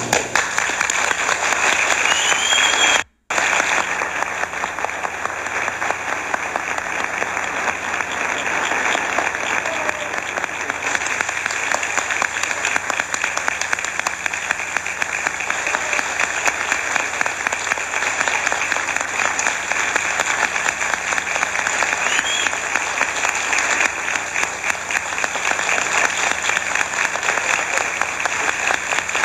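Audience applauding steadily at the end of a dance performance, a dense sustained clapping that takes over as the music ends. The sound drops out completely for a moment about three seconds in.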